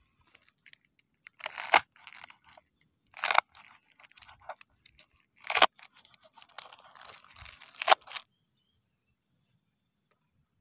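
A small folding knife cutting through crisp green vegetable stalks onto a wooden cutting board: four sharp cuts about two seconds apart, with fainter sounds between, stopping about eight seconds in.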